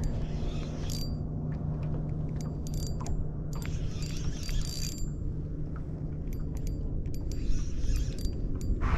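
Light clicking and rattling of fishing reel and tackle being worked while jigging, in short patches, over a steady low hum.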